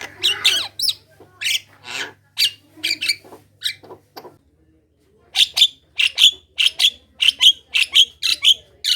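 Javan myna chattering in full song: a varied run of short, harsh notes, a brief pause, then a fast even series of short calls about three a second.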